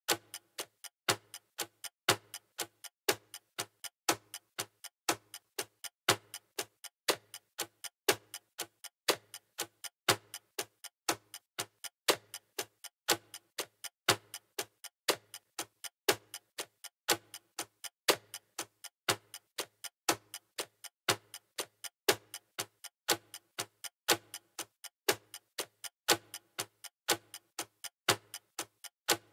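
Countdown-timer clock ticking, steady and even, with a louder tick each second and softer ticks between, marking the seconds of a timed quiz round.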